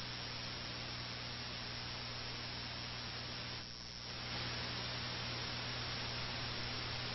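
Steady electrical mains hum under an even hiss, dipping briefly about three and a half seconds in.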